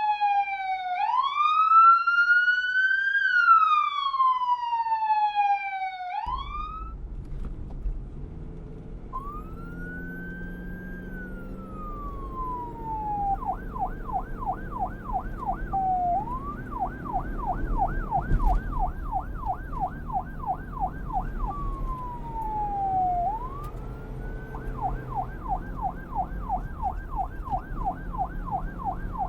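Electronic police siren sounding a wail in slow rising and falling sweeps. About six seconds in it cuts to a second police siren heard over a low rumble, switching between slow wails and a rapid yelp of about four to five sweeps a second.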